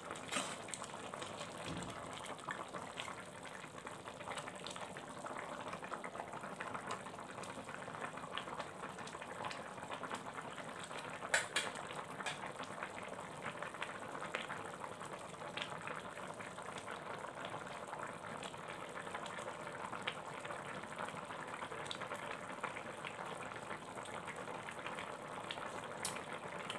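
Chicken curry with fermented bamboo shoots boiling in an electric wok: a steady bubbling crackle, with one sharp click about eleven seconds in.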